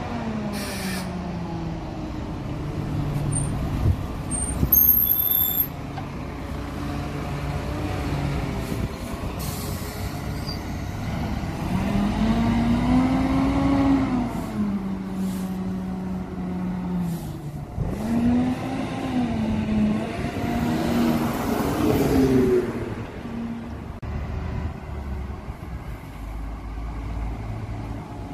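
Diesel engines of double-decker buses running as they pull in, the engine note rising and falling several times as they change gear and speed. A brief high brake squeal comes about five seconds in.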